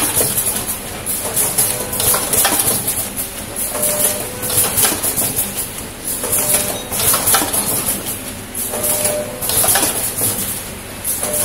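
A three-side-seal liquid sachet packing machine running. Its sealing jaws and air cylinders clatter in a repeating cycle, about once a second, over a steady high hiss.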